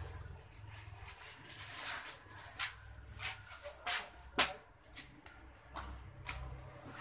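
Light rustling and scattered clicks, with one sharp click a little over four seconds in. Near the end a hand starts working dry fishing-bait powder and grain in a plastic bowl.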